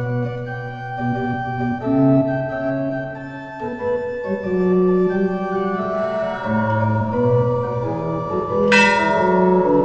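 Organ playing slow, sustained chords that shift every second or two. Near the end, a bell is struck once and rings on over the organ.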